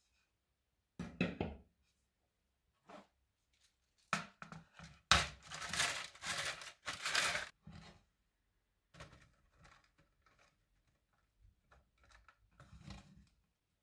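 Lemon peels being handled and laid out on a plastic mesh drying tray: a knock about a second in, a few seconds of rustling and scraping in the middle, then lighter handling sounds near the end.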